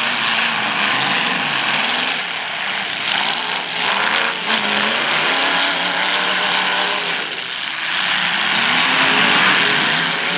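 Several demolition derby cars' engines running and revving together, a loud continuous rumble whose pitch rises and falls as the drivers work the throttles.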